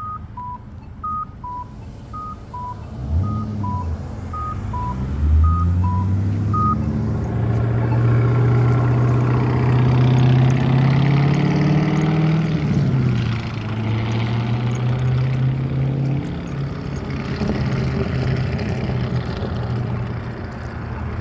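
Accessible pedestrian signal push button sounding short electronic beeps that alternate between a higher and a lower tone, about two a second, for roughly the first seven seconds. A vehicle engine accelerates from about three seconds in and runs loudly past, then fades.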